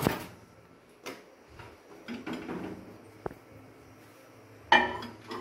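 Microwave oven door shutting with a clunk, then single clicks of its keypad being pressed. Near the end it beeps and starts running with a low steady hum.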